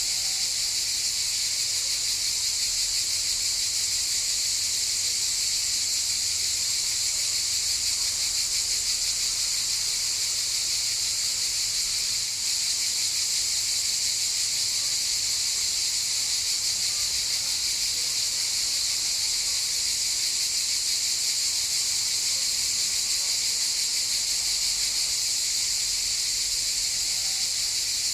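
A chorus of cicadas buzzing, one steady, unbroken, high-pitched drone.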